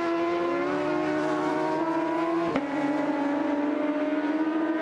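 Racing motorcycle engines at high revs, their pitch climbing slowly as the bikes accelerate along the track. A single sharp click about halfway through.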